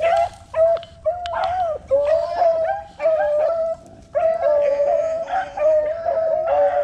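A pack of beagles baying together as they run a rabbit's track, their long drawn-out bawls overlapping almost without a break, with a short lull about four seconds in.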